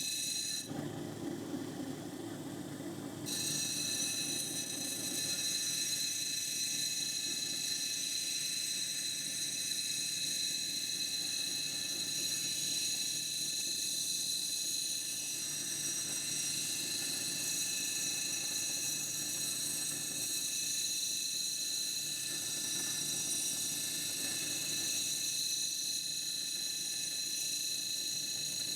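Lapidary grinding machine running steadily with a high whine as a tiger eye stone on a dop stick is shaped on its 80-grit wheel. The tone shifts briefly just after the start, then stays even.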